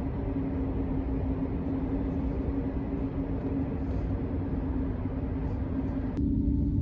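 Steady rumble of a moving vehicle with a constant low hum. About six seconds in it cuts abruptly to a louder, duller rumble.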